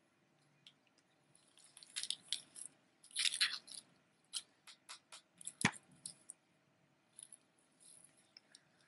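Strands of seed beads rustling and clicking against each other as the necklace is handled, in short irregular bursts, with one sharper knock a little over halfway through.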